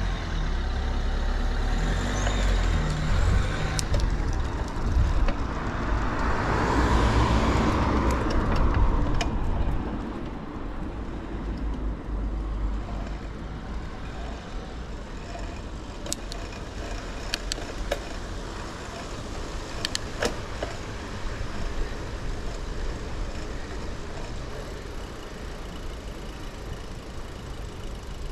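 Road traffic: a motor vehicle passes, loudest about seven seconds in, over a low rumble, then the traffic noise drops to a quieter steady hum, with a few sharp clicks later on.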